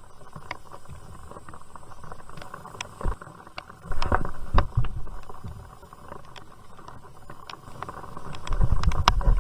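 Raindrops ticking irregularly on a plastic bag over a head-mounted camera, over a steady hiss, with muffled thumps and rustles of handling around four seconds in and again near the end.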